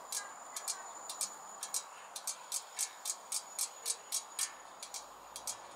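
Robo Fish toy fish ticking as it swims: fast, light clicks, roughly three to four a second and slightly uneven.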